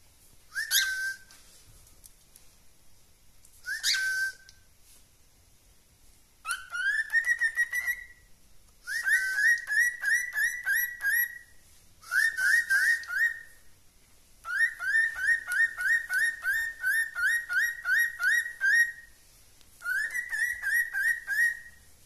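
Cockatiel singing. It gives two short rising whistles, then bouts of quick repeated whistled notes, several a second, each bout lasting one to four seconds.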